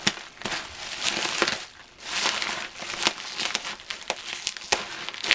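Bubble wrap and plastic packing crinkling as it is pulled apart and unwrapped by hand, with a few sharp clicks along the way.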